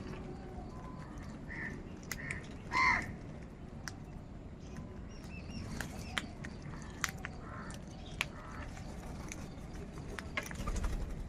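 Crows cawing: a few short, scattered caws, the loudest about three seconds in, with sharp clicks here and there.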